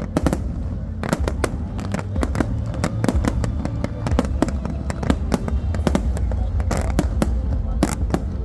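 Fireworks display: a rapid, continuous run of bangs and crackles over a heavy low rumble.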